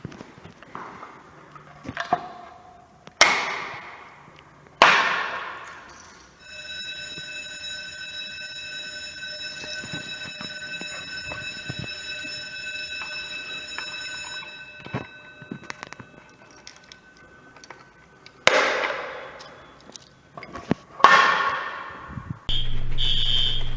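Fire alarm sounding: a steady electronic tone held for about eight seconds, with several loud, sudden sounds that ring out and die away over a second or so. Near the end a louder steady alarm buzz starts.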